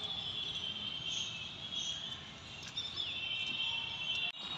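Outdoor ambience: a steady, high-pitched chirring with a few brief chirps over a low background rumble. The sound cuts out for a moment near the end.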